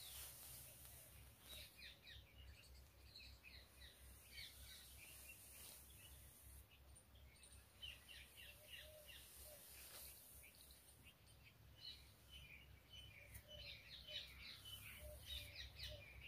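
Faint chirping of small birds: many short, quick calls repeated all through, over a low steady rumble.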